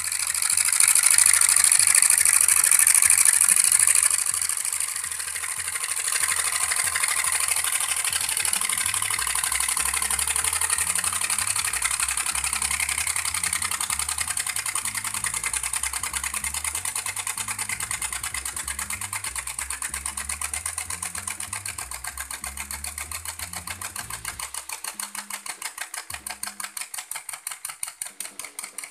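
Homemade hot-air Stirling engine running, its pistons and flywheel linkage making a fast, even mechanical clicking that fades gradually. A loud hiss sounds over the first few seconds.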